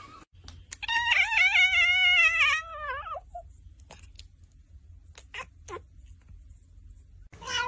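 A cat's long, wavering meow of about two seconds that drops in pitch at the end, followed a couple of seconds later by a few short, faint chirps and clicks.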